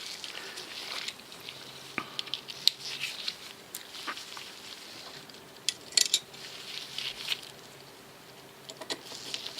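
Scattered light clicks and taps of small metal parts as a flipper folding knife is taken apart with a driver: screws, liners and scales being handled.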